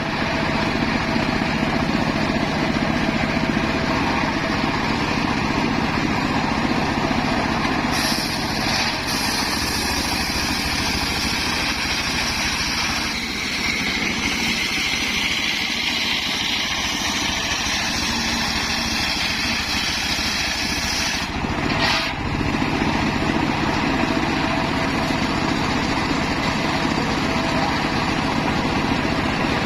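Homemade engine-driven circular saw running steadily. From about eight seconds in, the blade cuts through a piece of wood with a loud hissing rasp for some thirteen seconds, which stops suddenly, leaving the engine and blade spinning free.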